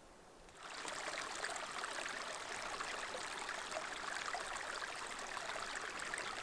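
Small shallow creek running over rocks: a steady water sound that starts abruptly about half a second in.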